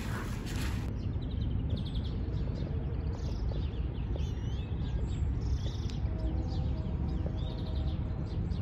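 Small birds chirping and whistling in quick, varied calls over a steady low background rumble.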